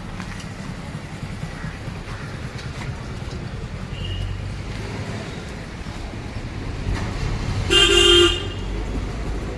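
Steady low traffic rumble, with a vehicle horn honking once, about half a second long, near the end.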